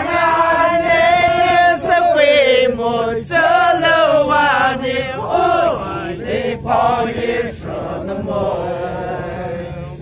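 A group of men singing together in unison, with long held notes, fairly loud; the singing eases off a little in the last couple of seconds.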